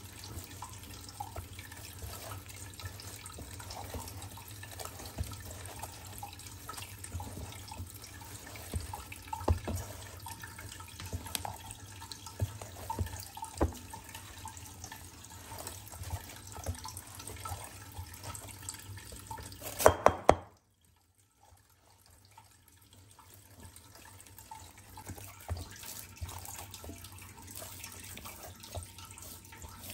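Hand kneading moist, crumbly dough in an enamel bowl: a steady squishing and crumbling with many small irregular crackles. A cluster of sharp knocks comes about two-thirds of the way in, followed by a brief drop to near silence before the kneading sound returns.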